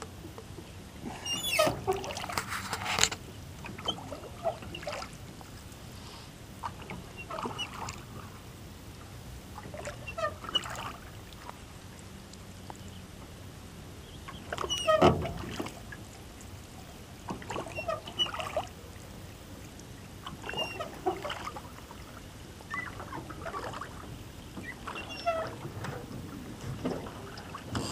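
Oars rowing a small rowboat through calm water: a dip and swish of the blades at each stroke, roughly every two to three seconds, the strongest stroke about halfway through.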